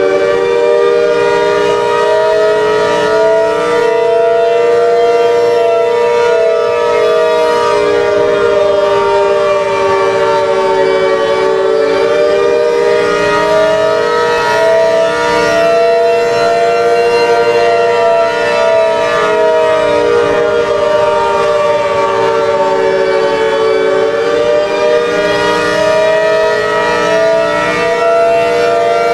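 ACA Hurricane 130 civil defense siren sounding the Attack signal: a loud chord-like wail whose pitch slowly sags and rises again, bottoming out about every twelve seconds.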